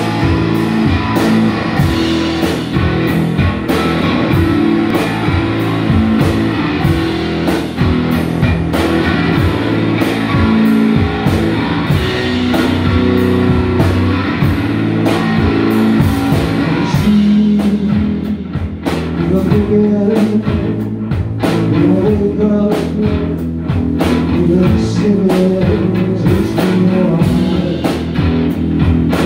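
Live blues-rock from an electric guitar and a drum kit playing together; the sound thins out a little past halfway, and a man's voice sings over the guitar and drums in the later part.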